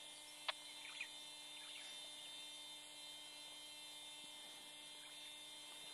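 Near silence with a faint, steady hum. There is a single click about half a second in and a few faint high chirps between one and two seconds in.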